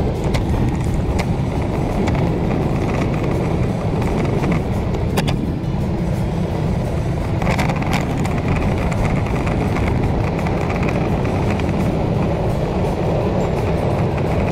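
Steady wind rumble on the microphone while riding along a cycle path, with road noise underneath and a few sharp clicks or rattles here and there.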